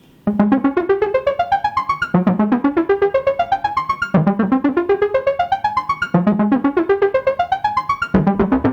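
Korg Volca Modular semi-modular synthesizer playing a sequence through its LFO modulation patch. A fast run of short plucked notes climbs steadily in pitch and starts over from the bottom about every two seconds.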